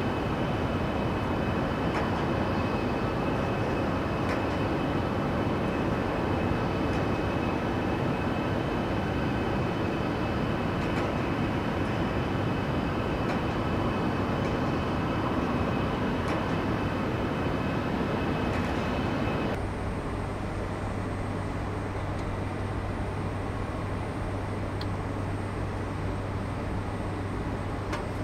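Steady industrial rumble and hiss with faint high whines held throughout. About two-thirds of the way in it cuts abruptly to a quieter, steady ambience dominated by a low hum.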